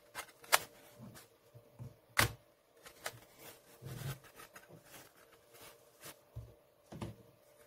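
Handling noise from a Xiaomi 10000 mAh power bank as it is turned in the hands and its internals are worked out of the shell: a few sharp clicks and knocks, the loudest about two seconds in, with soft rubbing and light thumps between them.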